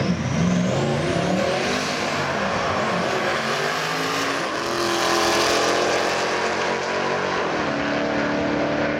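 Two drag-racing cars, a Dodge Challenger one of them, accelerating hard from the start line down the strip. The engine pitch climbs, drops at each gear change and climbs again as the cars pass by and pull away.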